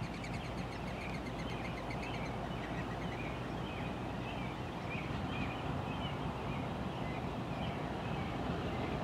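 Birds chirping in short, irregular calls over a steady low background rumble, with a fast high trill in the first couple of seconds.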